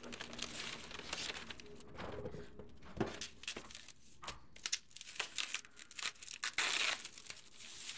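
Tissue paper and bubble wrap crinkling and rustling as a wrapped book is handled out of a cardboard box, then plastic bubble wrap being pulled and torn open, with a longer tearing stretch near the end.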